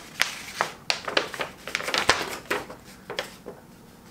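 Sheets of paper rustling and crinkling as they are handled and drawn out of a mailing envelope: a quick, irregular run of crackles that dies down after about three seconds.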